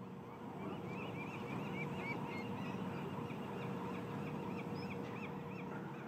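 Pigeon guillemot calling, a rapid series of short, thin, high whistled notes, about three or four a second, over a steady background hiss.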